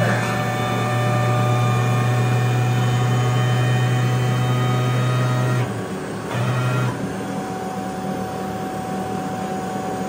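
Baker electric band sawmill running with a steady machine hum. A louder low drone runs for the first five or six seconds, cuts off, and comes back briefly about a second later as the mill's controls are worked.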